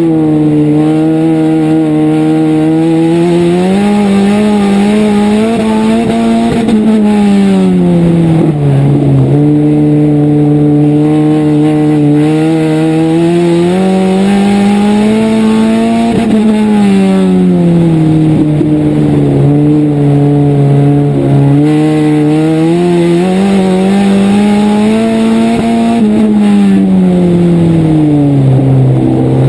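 Dirt-track race car engine at racing speed, heard from an onboard camera on the car. The pitch climbs along each straight and drops off into each turn, a cycle that repeats about every ten seconds.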